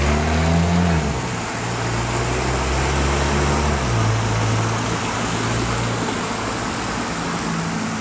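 Street traffic as trams pass close by: a low motor hum that jumps in pitch about a second in and again around four seconds, with a faint rising whine in the first second, over a steady noise of traffic.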